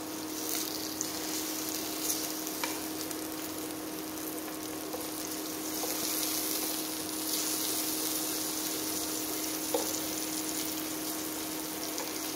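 King oyster mushroom slices sizzling in butter in a frying pan as they sear: an even hiss, with a steady hum underneath and a few faint clicks.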